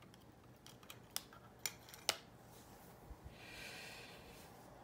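Faint clicks and taps of metal alligator clips and meter test leads being handled and set down on a towel-covered bench, about five in the first two seconds, then a brief soft rustle as the gear is moved.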